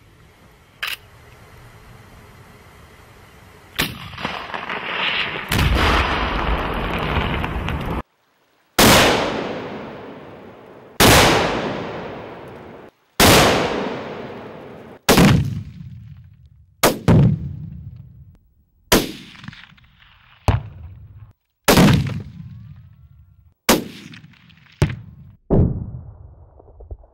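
A string of Tannerite exploding rifle targets detonating, about eleven sharp booms roughly two seconds apart, each trailing off into a low rumble, some cut short abruptly. Before them come a few sharp cracks and several seconds of loud steady noise.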